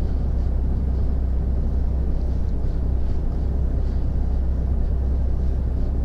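Cab noise of a loaded Mercedes-Benz Actros articulated lorry on the move: a steady low engine drone with road rumble, unbroken throughout.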